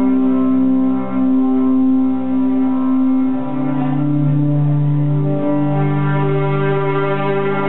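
Amplified electric guitars playing a sustained drone: long held, layered notes that shift pitch a few times, with no beat or plucked attacks.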